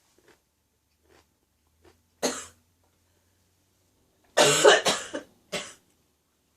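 A woman coughing. There is a single cough about two seconds in, then a fit of several quick coughs in a row, and one more cough soon after.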